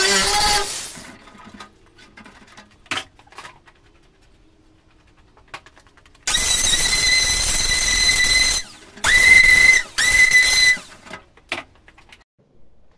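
An angle grinder runs and stops within the first second, followed by a few light clicks. About six seconds in, a handheld air tool runs with a steady high whine and air hiss for about two seconds, then runs in two short bursts, each rising quickly in pitch as it spins up.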